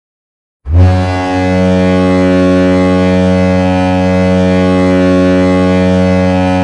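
San Jose Sharks goal horn sounding one long, steady, deep blast that starts sharply about half a second in. It is the arena signal for a goal.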